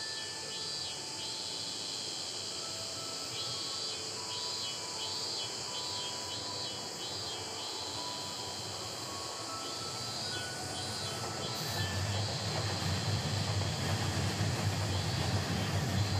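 Ambient soundscape: insect-like chirping over a steady high hiss, with a few faint held notes. A low rumble comes in and grows louder from about twelve seconds in.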